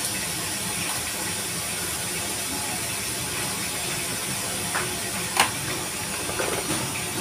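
Steady hiss of rain falling, even throughout, with one sharp click a little past five seconds in and a few faint taps near it.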